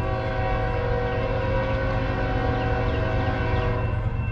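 Diesel locomotive's air horn sounding one long blast of several tones at once, held steady for about four seconds and cutting off shortly before the end, from a freight train approaching out of sight.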